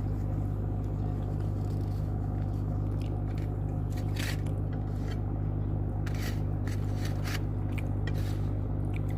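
Short crunching and clicking sounds of eating spicy chicken feet, scattered through the second half, over a steady low mechanical hum.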